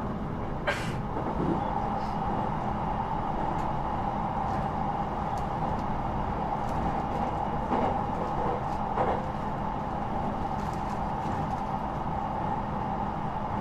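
Inside an electric commuter train running between stations: steady rumble of the wheels on the rails with a steady hum. A few sharp clicks and knocks come through, the clearest about a second in.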